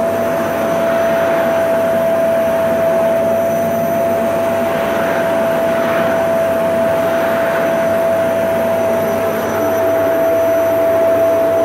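Vacuum cleaner running steadily: a constant high motor whine over a rushing hiss of air.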